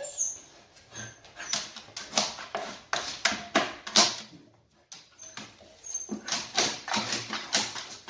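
Siberian Husky in labour panting rapidly and hard, at about three to four breaths a second, with a short break about halfway and a few brief high whimpers.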